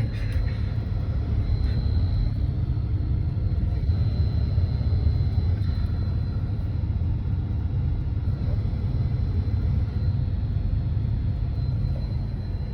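Steady low rumble of a car being driven, with engine and road noise heard from inside the car, plus a faint steady high tone.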